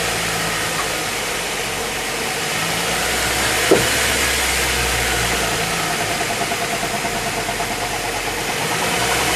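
Car running with a wheel turning, carrying the steady hum of a worn wheel bearing that gets louder with speed and quieter when the weight shifts off it. A brief chirp comes a few seconds in.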